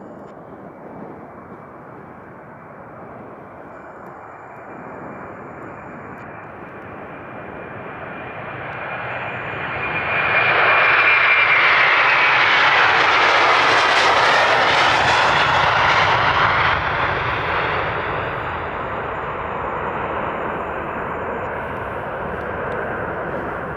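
Airbus A330-200 jet taking off and passing. The engine noise builds to its loudest about halfway through, with a high whine that drops in pitch as it goes by, then settles to a steadier rumble as it climbs away.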